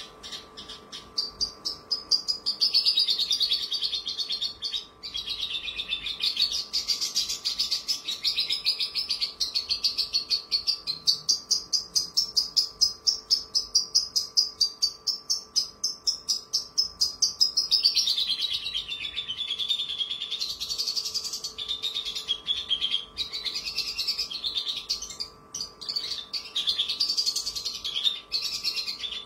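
Javan bush lark (branjangan) singing a long, fast run of quick chirping notes that sweep up and down in pitch, with brief breaks about five seconds in and near the end.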